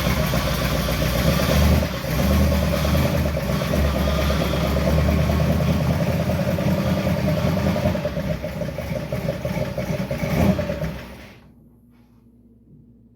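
A vehicle engine running at idle, then switched off about eleven seconds in.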